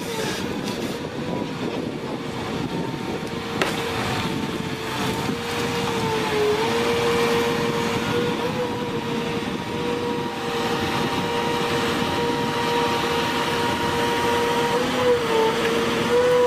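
A heavy machine's engine running with a steady whine that dips briefly in pitch twice, over a constant mechanical rumble.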